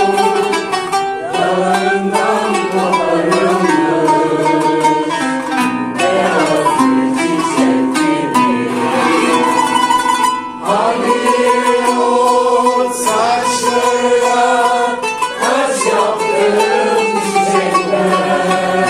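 Kanun being plucked in a flowing Turkish melody, with a voice singing along.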